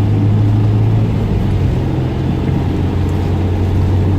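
Steady low engine and road drone heard from inside a moving Honda S2000's cabin, its pitch lifting slightly for a moment in the middle.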